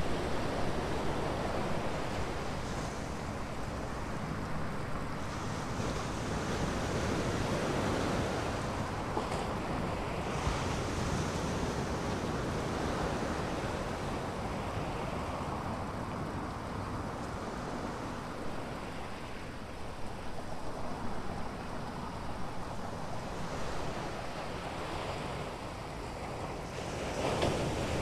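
Ocean surf breaking and washing on a beach, a steady rush that swells and eases, with a louder wave near the end. Wind buffets the microphone at times.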